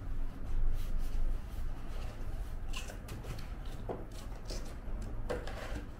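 Cardboard being handled: a helmet box shifting and scraping inside an open corrugated shipping carton, with the flaps rustling and a few light knocks.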